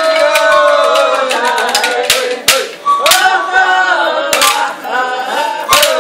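Voices singing a chant-like dance song together, with long notes that slide in pitch. Several sharp percussive strikes land through the second half.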